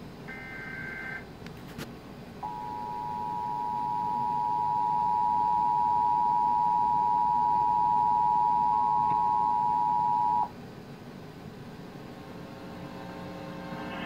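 Emergency Alert System Required Monthly Test playing through a TV's speaker. The last short burst of the digital SAME header, a warbling data screech, comes first. After a pause of about a second, the EAS two-tone attention signal (853 and 960 Hz together) sounds as a steady loud tone for about eight seconds and then cuts off abruptly.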